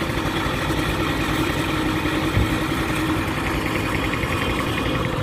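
Steady rush of sandstorm wind buffeting the microphone, mixed with the steady running of vehicle engines on the road.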